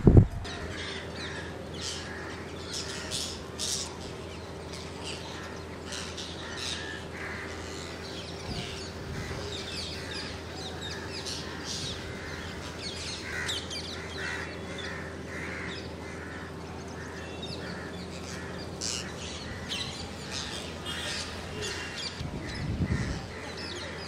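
A large flock of rose-ringed parakeets screeching, many short shrill calls overlapping without a break.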